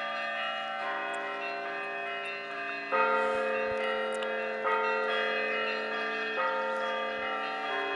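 Orthodox church bells being rung: several bells of different pitch struck in turn, each ringing on under the next. A fresh strike comes every second and a half to two seconds, the loudest about three seconds in.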